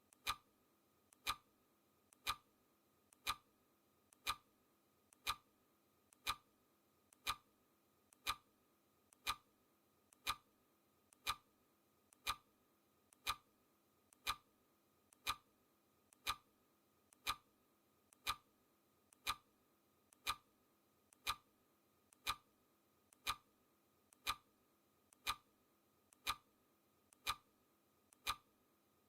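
Clock-ticking sound effect: a steady mechanical clock tick, one sharp tick each second, each with a faint lighter click just ahead of it, marking the countdown's seconds.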